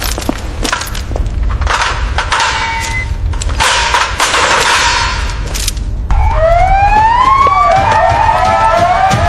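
Emergency vehicle siren starting up about six seconds in, several wailing tones rising and wavering. Before it, a run of knocks and two loud rushes of hissing noise.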